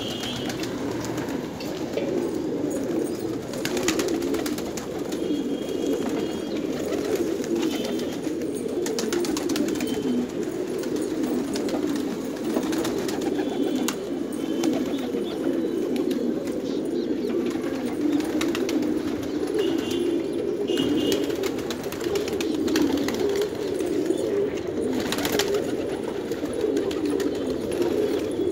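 A flock of domestic gola and racer pigeons cooing together, many overlapping low coos forming a continuous murmur.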